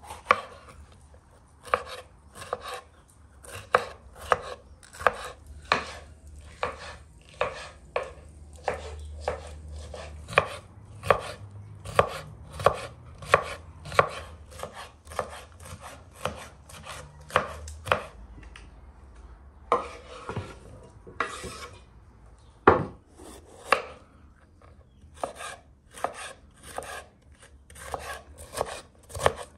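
Knife chopping food on a cutting board in a steady run of sharp knocks, roughly one to two a second. The chopping pauses briefly for a scraping sound about twenty seconds in, then resumes.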